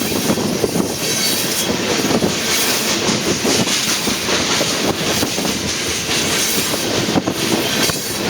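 Crude-oil tank cars of a freight train rolling past: steel wheels clicking over rail joints amid a steady rumble and hiss of the train.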